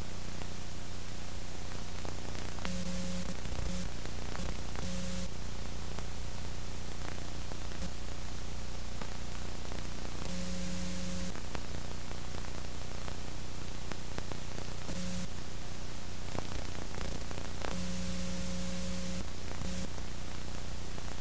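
Steady hiss and electrical hum with no program sound, broken by a handful of short buzzes of a second or less: the noise floor of a home-movie transfer that has no recorded soundtrack.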